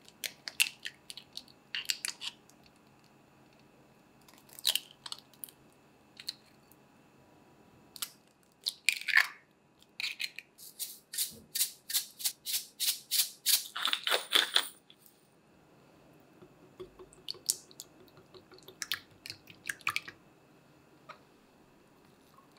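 Eggs cracked and separated into glass bowls, with sharp shell clicks and taps. About halfway through comes a run of quick, even strokes, about three a second for some five seconds, followed by a few more scattered clicks.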